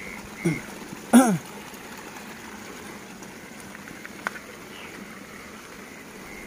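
Steady trickling water. Near the start come two short cries falling in pitch, the second one, a little after a second in, the loudest sound.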